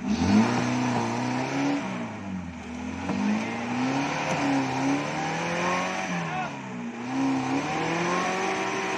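Suzuki LJ80 Jimny's small engine revving up and down again and again, its pitch rising and falling every second or so, as it works over an offroad track.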